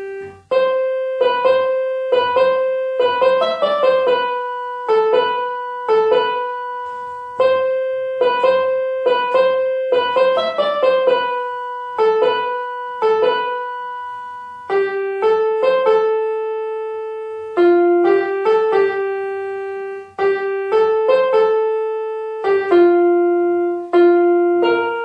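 Portable electronic keyboard on a piano sound, playing a simple melody one note at a time, each note struck and left to fade. A few quick runs of notes come along the way, with short breaks at the start and about 20 seconds in.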